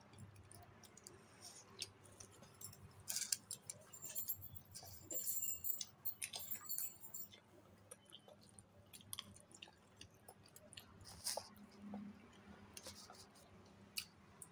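A person eating pakhala, rice soaked in water, by hand from a steel bowl: quiet chewing, with scattered light clicks and wet sounds from the bowl, busiest a few seconds in.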